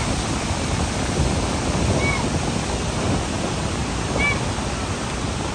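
Steady rush of water at a dam's crest gate, blending with reservoir waves against the masonry pier. Two brief high chirps sound about two and four seconds in.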